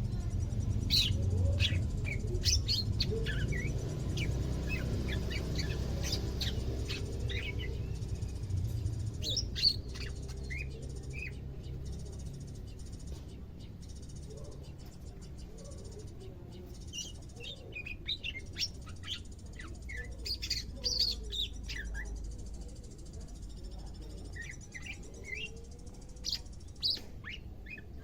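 Cucak ijo (green leafbird) calling in short, scattered chirps and twitters: a newly kept bird starting to call actively on its second day of care. A low rumble runs underneath and fades after about ten seconds.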